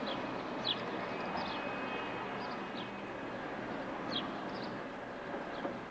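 Outdoor street ambience: a steady hiss of background city noise, with small birds giving short, high chirps every second or so.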